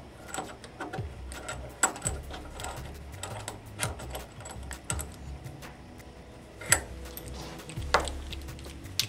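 Small metal bench vise being hand-tightened on a steel HPLC pump head: scattered light metallic clicks and knocks from the turning screw handle and the metal parts. The sharpest clicks come about two seconds in and near seven seconds in.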